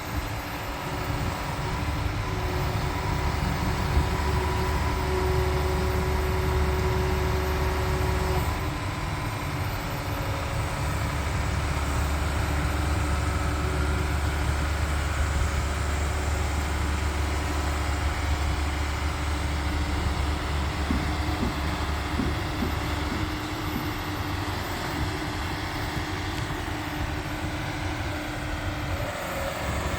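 John Deere 350G excavator's diesel engine running steadily under load while it digs; the engine note shifts about eight seconds in.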